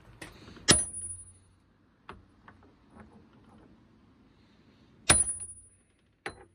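Hammer blows on a steel socket driving a BMW E36 rear wheel hub out of its bearing in the trailing arm: two hard metal strikes about four seconds apart, each with a high ringing, with lighter knocks between them and another strike near the end.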